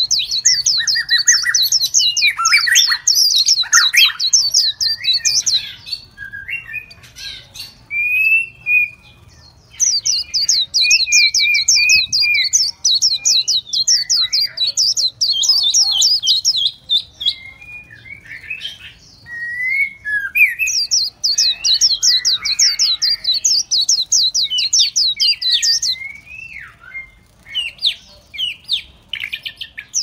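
Small songbirds singing: three long, fast, high-pitched trills of several seconds each, with short whistled phrases and calls between them.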